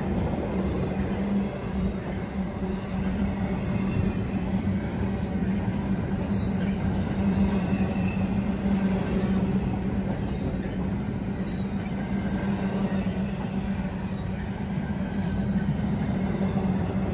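Double-stack intermodal freight train rolling past: steady wheel-on-rail noise from the cars, with a constant low hum underneath.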